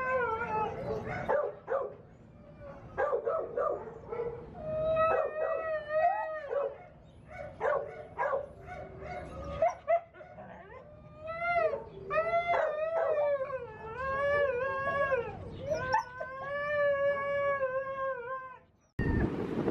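Dogs howling and whining: a series of long, wavering, high howls with short yips and barks between them.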